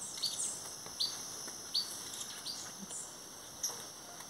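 A bird chirping in short, quick falling notes, about one every second, over a steady high insect drone.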